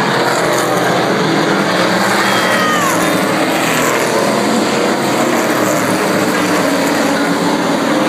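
Engines of several winged sprint cars racing around a short oval track: a steady, loud drone of overlapping engine notes, with pitch sliding as the cars pass.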